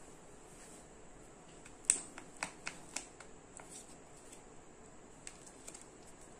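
Plastic-wrapped Kinder Joy eggs being handled: sharp plastic clicks and crinkles, a cluster of them about two seconds in as one egg is picked from the pile, then a few fainter ones as it is turned in the hands. A faint steady high hiss runs underneath.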